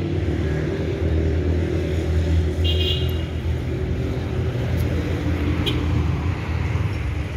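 Street traffic: cars driving past, with a steady low engine and road rumble. A brief high-pitched squeal about three seconds in.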